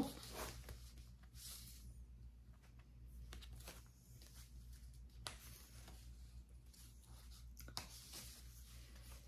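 Faint rustling and sliding of paper and card as a tucked-in card is pulled from a page pocket of a handmade paper-and-fabric journal and slid back in, with a few soft clicks, over a low steady hum.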